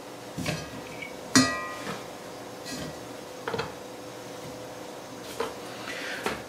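Celery being cut with a chef's knife and the pieces dropped into an enamelled cast-iron Dutch oven: several sharp knocks, one about a second and a half in ringing briefly with a metallic tone.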